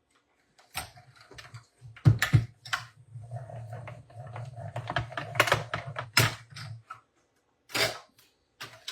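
Die-cutting machine pulling a die and card through its rollers: a steady low hum lasting about six seconds, with sharp clicks and knocks from the cutting plates throughout and a few more clicks near the end.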